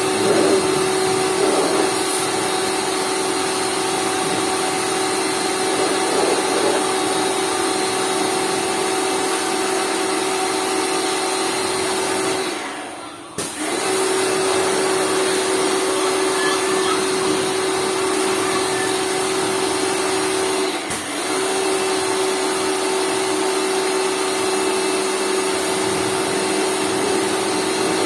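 Lakoni Laguna 70 electric pressure washer running with a steady hum over a broad hiss. It cuts out for about a second about halfway through, then starts again, with another brief dip later on.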